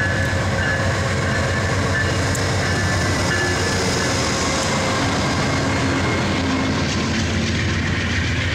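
VIA Rail passenger train passing close by at speed, led by a GE P42DC diesel locomotive: its engine runs, then the coaches roll past on the rails. The sound is loud and steady throughout.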